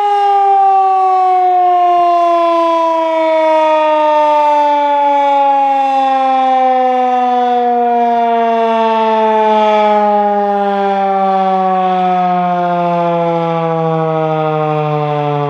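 Federal Signal 2001-DC electromechanical siren winding down after a test: its single tone glides steadily lower in pitch as the rotor coasts to a stop, fading slightly toward the end.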